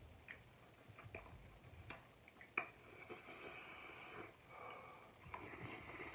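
Quiet eating sounds from cup noodles: faint slurping of noodles and a few light clicks of forks against the paper cups.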